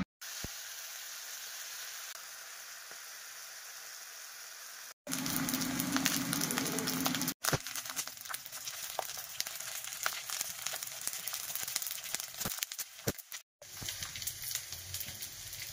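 Meat sizzling as it fries in an iron wok, with frequent clicks and scrapes from a metal spatula stirring it. The sound breaks off abruptly a few times and picks up again.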